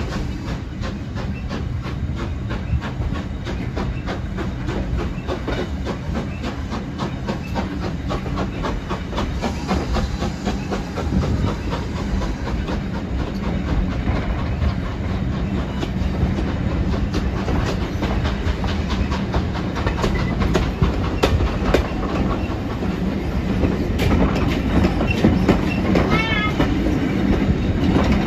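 Railway carriage riding along the track, heard on board: a steady rumble with clickety-clack of the wheels over rail joints, slowly growing louder, and a short wavering wheel squeal near the end.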